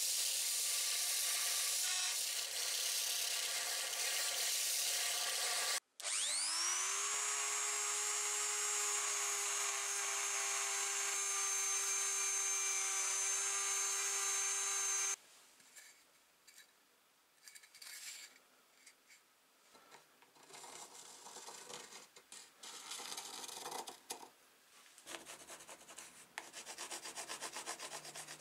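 A machete's rusty tang being ground on a belt sander, roughening the steel so glue will grip. After a short break a small rotary tool spins up with a rising whine and runs steadily with a sanding drum on the metal, stopping about halfway. Then come quieter, uneven scratchy strokes of a pencil shading on a wooden block.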